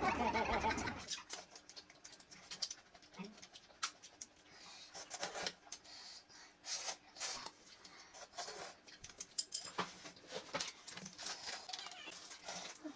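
Close-miked eating sounds: wet chewing, lip smacks and sharp mouth clicks coming irregularly, after a short wavering cry in the first second.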